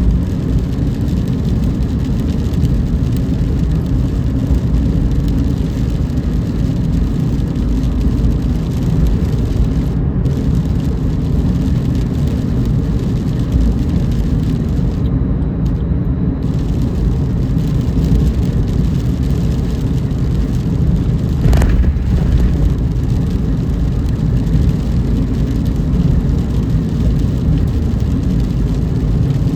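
Steady low road and engine rumble of a car being driven on rain-wet city streets, heard from inside the car. There is one brief faint sound about two-thirds of the way through.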